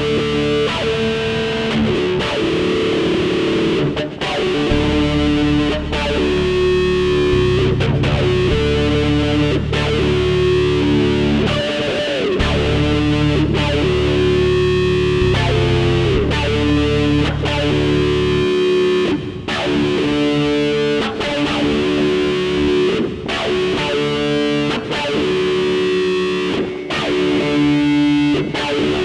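Instrumental stretch of a breakbeat track: distorted electric guitar with effects holding notes over a heavy bass line. The bass drops out about two-thirds of the way through, leaving the guitar.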